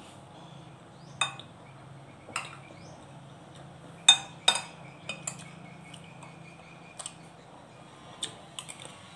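A metal spoon clinking and scraping against a dish while scooping up rice: about ten sharp clinks at uneven intervals, some ringing briefly, the loudest pair about four seconds in.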